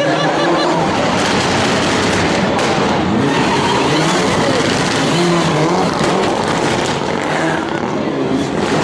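Mitsubishi rally car at speed, its engine running hard under load and changing pitch, with tyre noise throughout.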